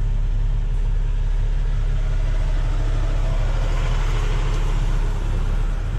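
Heavy rotator tow truck's diesel engine running steadily, a low even drone heard from inside the cab.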